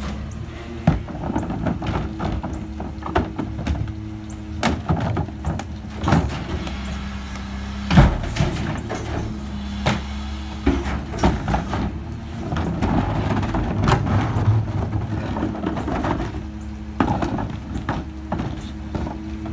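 Loadmaster rear-loader garbage truck running with a steady hum while its grabber-style cart tipper lifts and dumps wheeled trash carts, with repeated bangs and clangs of plastic carts knocking against the tipper and hopper; the loudest bang comes about eight seconds in.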